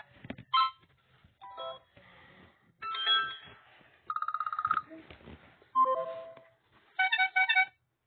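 Notification tone previews on a Lenovo M10 Android tablet, played one after another as each entry in the picker is selected. About six short chimes, beeps and jingles, each cut off when the next is picked, including a fast pulsing tone a little past the halfway point and a rhythmic chime near the end.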